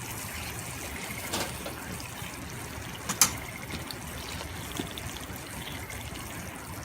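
Sardines in soy–sake–mirin sauce sizzling steadily in a pan over a campfire, with a sharp pop about three seconds in and a fainter one earlier.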